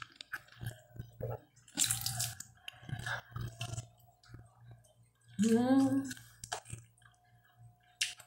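Mouth sounds of someone eating roast chicken with her hands: scattered lip-smacking and wet clicks as she chews and picks at the meat, with a brief voiced sound from her about five and a half seconds in.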